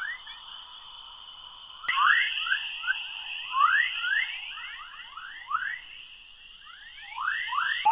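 Earth's 'chorus': plasma waves in the magnetosphere recorded by NASA's Van Allen Probes (RBSP) and played back as sound. It is a dense run of short rising chirps, like birdsong, over a steady high hiss, and it grows louder after a sharp click about two seconds in. The waves are a sign of charged particles in the Van Allen radiation belts.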